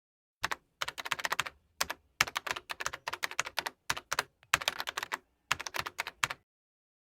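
Keyboard typing: quick runs of sharp key clicks in several bursts with short gaps, stopping about six seconds in.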